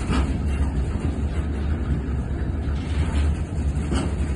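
Loaded Falns bogie hopper wagons of a heavy coal train rolling past: a steady low rumble of wheels on rail. A sharp clack sounds right at the start and another about four seconds in.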